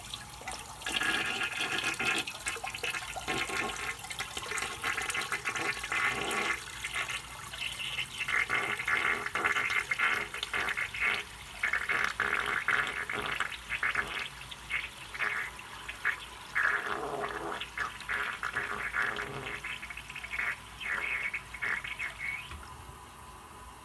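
A toilet flushing: water rushes and gurgles through the bowl and drain for about twenty seconds, then stops abruptly near the end.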